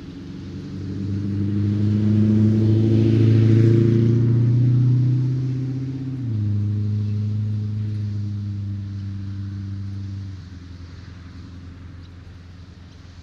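A motor vehicle passing on a road, its low engine note swelling and then dropping slightly in pitch about six seconds in before fading about ten seconds in, with tyre hiss loudest near the middle of the pass.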